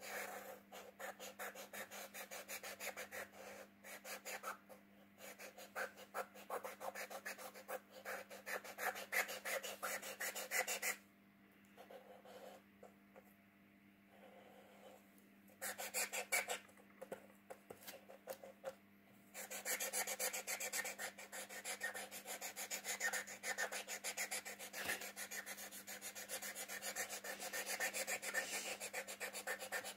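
Felt-tip marker scrubbing back and forth on paper, colouring in a letter in fast scratchy strokes. The strokes stop for a few seconds about a third of the way through, come back briefly, pause again, then run steadily to the end.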